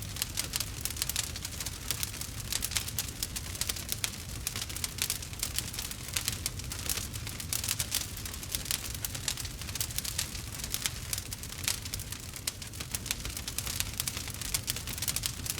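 Fire crackling steadily, with dense irregular pops and snaps over a low rumble.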